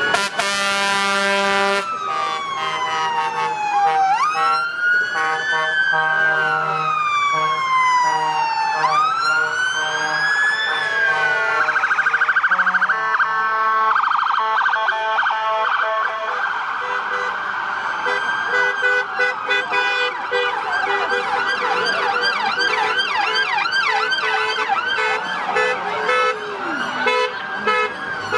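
Vehicle sirens sounding in a passing convoy: a slow rising-and-falling wail about every two to three seconds, switching to a fast yelp about halfway through. A short, blaring horn blast sounds about a second in.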